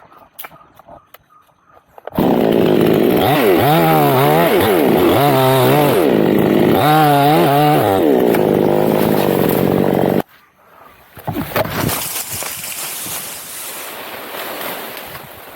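Chainsaw running at high revs, its pitch dipping and climbing three times, then stopping abruptly. A fainter rustling noise follows.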